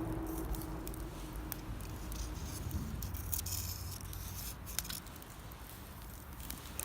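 Wood campfire crackling and popping, with irregular sharp snaps throughout and a brief hiss around the middle; the firewood is wet, which makes it pop and crackle.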